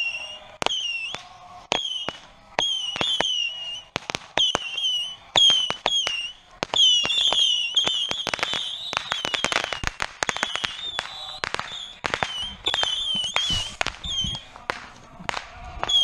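Handheld fireworks, Roman candles and whistling rockets, fired in a rapid exchange: a continual run of sharp pops and bangs mixed with many short, high whistles that drop slightly in pitch. The firing grows densest about halfway through.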